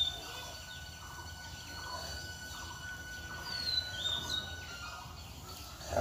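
Birds calling in the open air: short, high, falling whistled calls, a couple of them close together about two-thirds of the way through, over a faint steady background hum.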